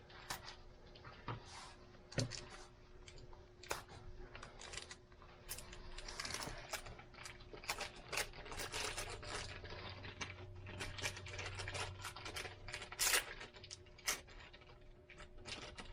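Packing tape being peeled and torn off a small package, with crinkling and many scattered clicks and taps of handling.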